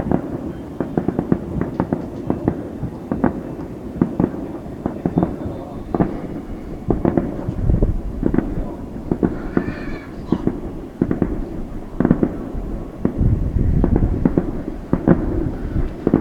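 Fireworks going off in a dense, irregular barrage of sharp bangs and pops over a continuous low rumble.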